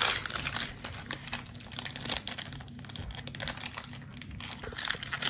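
Foil blind-bag packet crinkling and crackling in a child's hands as she works it open, with a run of small, irregular crackles.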